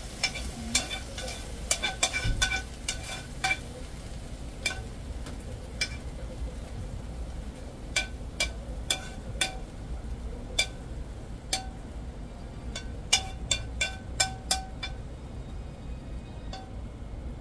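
Chopsticks tapping and scraping against a stainless steel frying pan as stir-fried beef is pushed out onto a plate, each tap leaving a short metallic ring. The taps come in quick clusters near the start and again about two-thirds through, with scattered single taps between, over a steady faint hiss.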